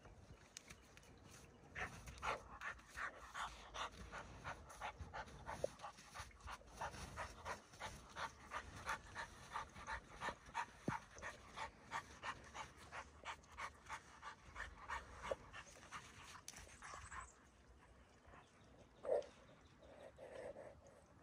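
Rottweiler panting fast and rhythmically, about two to three breaths a second, stopping about three-quarters of the way through. One short, louder sound follows near the end.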